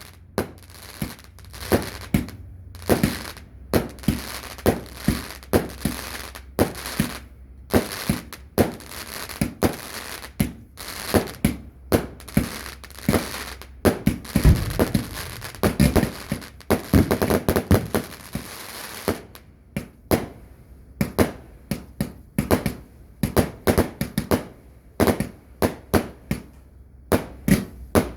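Fireworks going off in a long rapid series of sharp bangs, about two to three a second.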